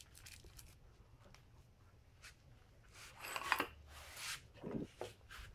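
Faint handling noises from new sealed motorcycle wheel bearings being turned over in greasy hands: scattered light clicks, then a louder rubbing rustle between about three and four and a half seconds in.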